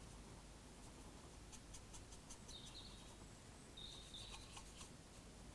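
Near silence, with faint light ticks and scratches of a fine paintbrush working across a plastic model locomotive body, and two short, faint high chirps in the middle.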